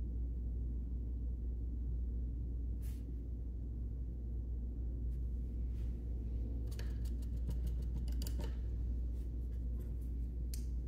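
Steady low room hum throughout. About seven to eight seconds in, a quick run of light clicks and rustles as a paintbrush is worked at the paper-plate palette and the plastic water cup.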